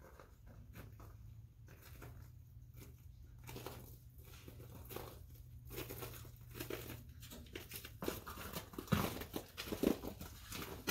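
Careful footsteps crunching and scuffing on icy, rocky ground, growing louder partway through, with two heavier thumps near the end.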